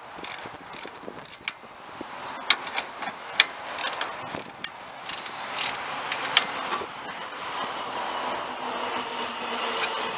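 Sharp metallic clicks and clinks from a hand tool working the bolts of a snowplow's steel mounting bracket, scattered and loudest in the middle. A steady noise grows louder over the second half.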